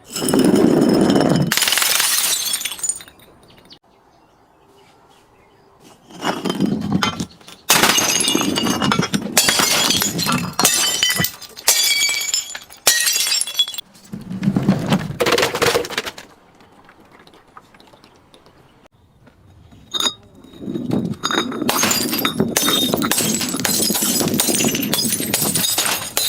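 Glass being crushed and breaking: crunching and tinkling of shards in three long spells, with a few sharp clinks just before the last.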